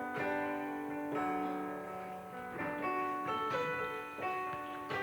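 Electronic keyboard, used as a MIDI controller driving an iPad's sounds, playing a slow piece with a piano-like sound: sustained notes and chords that ring on, with new notes struck about once a second.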